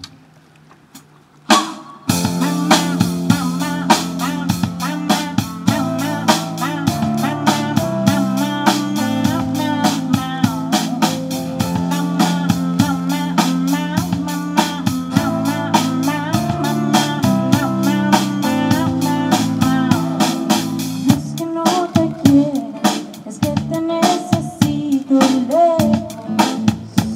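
Band playing live: drum kit, guitar and keyboard with a woman singing. The music starts about two seconds in, after a short quiet gap.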